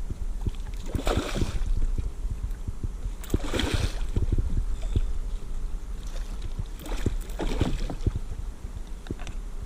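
Water splashing in three short bursts as a big hooked redfish thrashes at the surface beside a kayak, over many low knocks and bumps on the kayak's hull.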